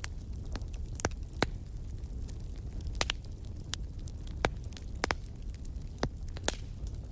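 Wood campfire burning, with sharp irregular crackles and pops from the burning wood, about eight loud ones, over a steady low rumble.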